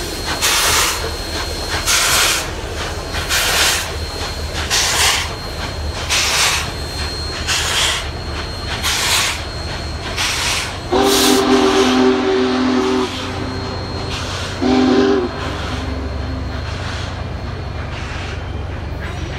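Union Pacific steam locomotives, the 844 and the Big Boy, working past under heavy exhaust, with sharp chuffs about every second and a half. About 11 seconds in a locomotive's chime sounds one long blast, then a short one a few seconds later, before the train rumbles by.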